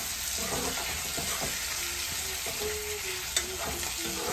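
Food sizzling in hot oil in a steel wok, with a metal ladle stirring and scraping against the pan. There is one sharp metallic clink a little over three seconds in.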